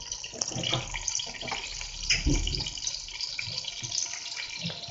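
Mutton pieces sizzling in hot oil and tomato paste in a nonstick pot, a steady crackle with many small irregular pops.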